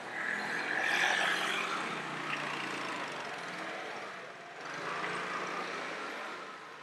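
Road vehicles passing along the street: a rushing swell that peaks about a second in and fades, then a second, smaller pass about five seconds in.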